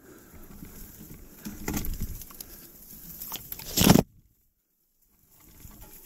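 Irregular rustling and scuffing of footsteps moving through brush, with louder scrapes, the loudest about four seconds in. Right after it the sound cuts out completely for about a second, then returns.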